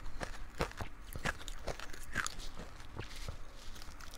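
Close-up crunching of powdered matcha ice being bitten and chewed, in a run of sharp, irregular crunches about two or three a second.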